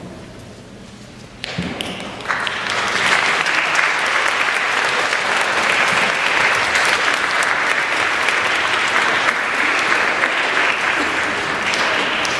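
An audience clapping for award winners. The applause starts about a second and a half in, swells quickly and then holds as steady, dense clapping.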